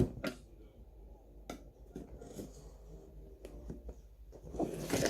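Light handling of product packaging: a sharp click at the start, then scattered soft taps and clicks.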